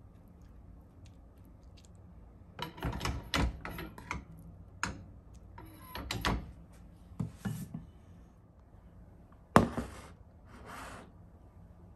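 A wooden spatula scraping stir-fried egg and bamboo shoots off a non-stick frying pan into a ceramic bowl, with clusters of short scrapes and knocks against the pan and bowl rims. About nine and a half seconds in, one sharp clunk as the bowl is set down on a stainless steel counter.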